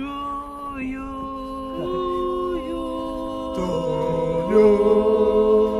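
A small group of men singing a cappella, holding long notes in harmony that move to new chords every second or so. Lower voices join about two-thirds of the way in, and the chord grows louder near the end.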